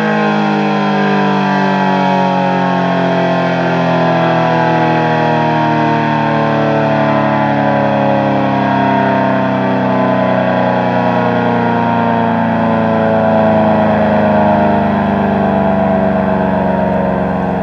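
ACA Allertor 125 dual-tone electromechanical tornado siren sounding a steady Alert tone, a chord of two pitches sinking slowly and gradually. Its rotator is broken, so the level holds steady with no rise and fall from rotation.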